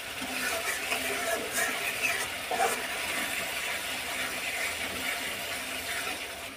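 A flat metal spatula scrapes and clanks against a karahi while stirring a thick, frying masala so it doesn't stick to the bottom. The scraping and clicks come in the first few seconds, over a steady sizzle.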